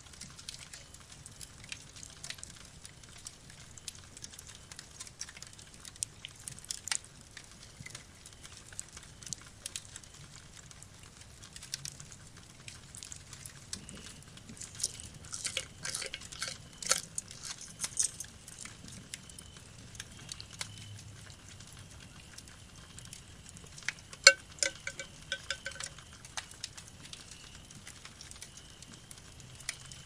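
Aluminium canteen and its metal cup being handled: scattered small clicks and taps, then a sharp metallic clink late on that rings on in a few pulses for a second or so.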